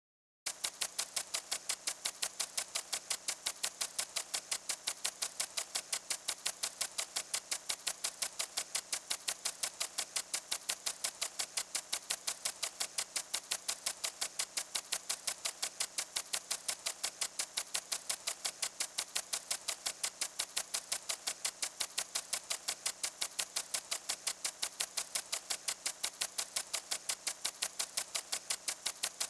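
Impact lawn sprinkler running, ticking rapidly and evenly at about three or four ticks a second over the hiss of its spray. It starts about half a second in.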